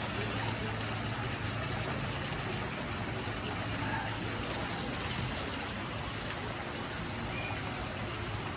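Steady rush of flowing water with a low, steady hum underneath.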